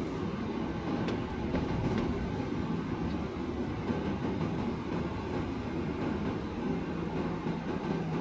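Steady low rumble of a car heard from inside the cabin as it rolls slowly through a parking lot: engine and tyre noise.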